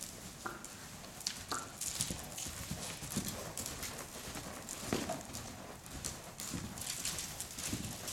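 Hoofbeats of a Hanoverian mare cantering, her hooves thudding over and over on dirt arena footing.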